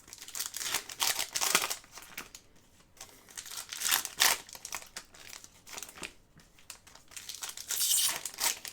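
Trading card pack wrappers being torn open and crinkled, in irregular rustling bursts, loudest about a second in, about four seconds in and near the end.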